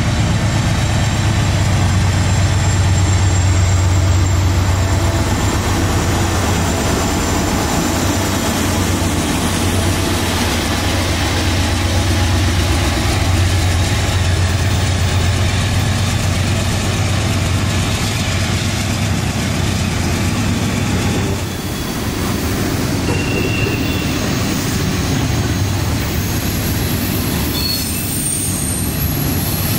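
Freight train of covered hopper cars rolling past at speed, a steady loud rumble and clatter of wheels on rail, with a few short high wheel squeals in the second half.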